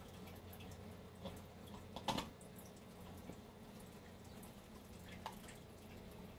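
Faint clicks and taps of a 3D-printed plastic vane supercharger being handled and assembled by hand, with one louder knock about two seconds in and smaller ones around it, over a low steady hum.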